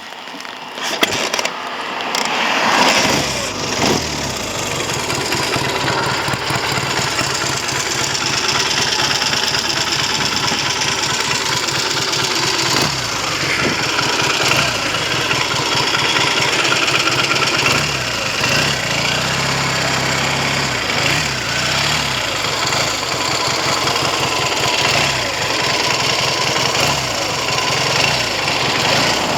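Triumph TR6 650cc parallel-twin motorcycle engine starting up about two seconds in, then idling steadily. The engine has a freshly rebuilt top end with new pistons and rings and runs on a 108 needle jet.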